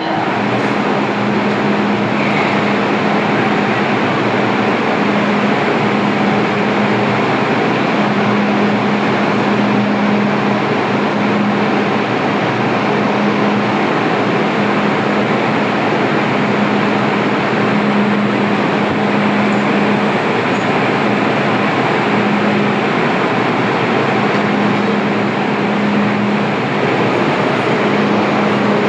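MTR Island Line M-Train electric metro train running, a steady rumble of rolling noise with a low hum that swells and fades every second or two.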